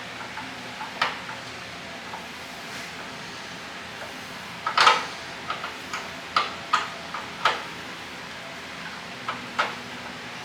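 Scattered sharp clicks and knocks of a screwdriver working the door-closer hardware on a VW Thing door. The loudest cluster comes about five seconds in, with more taps over the next few seconds, over a faint steady hum.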